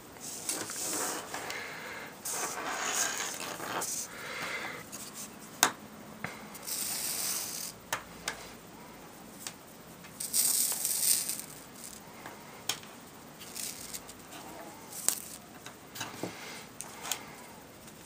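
Paracord being pulled and slid through a plastic buckle, giving rustling, hissing stretches of cord on plastic with scattered sharp clicks of the buckle being handled.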